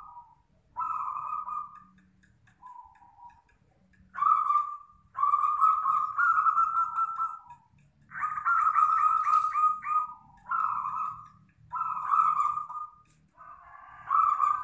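Zebra doves (perkutut) cooing in a string of short, mellow phrases, with a quick run of rapid pulsed notes about eight seconds in.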